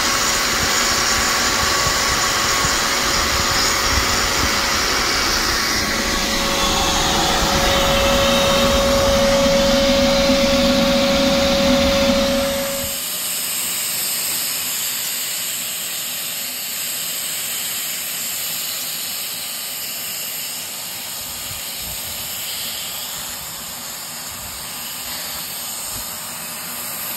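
A 4-inch Makita angle grinder with a MaxVac dust-extraction shroud grinding out the mortar joints of brickwork: a loud steady whine that grows heavier under load. It cuts off about halfway through, and a quieter steady hiss follows.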